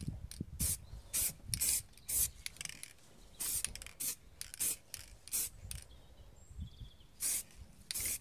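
Aerosol spray can of silver wheel paint hissing in a string of short, irregular bursts as a light first colour coat is dusted onto an alloy wheel.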